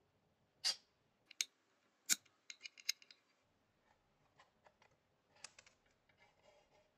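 Sharp metallic clicks and light scraping as the circuit board is slid out of an aluminium-alloy amplifier case. There are three loud clicks in the first two seconds, a quick run of small clicks around the three-second mark, then fainter scattered ticks.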